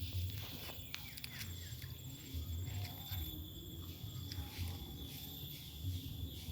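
Steady, high-pitched insect trilling, crickets, in a night-time outdoor chorus, over a low, uneven rumble, with a few sharp clicks about a second in.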